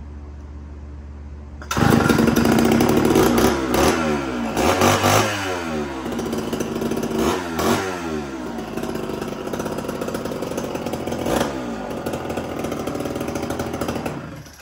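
Gas chainsaw with its chain removed starting up about two seconds in, then running loud and being revved up and down several times before cutting off near the end.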